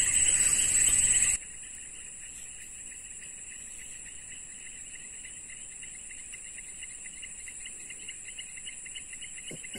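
Insects chirping in a steady chorus: a high continuous buzz over a lower, rapidly pulsing trill. The whole chorus drops sharply to a quieter level about a second and a half in.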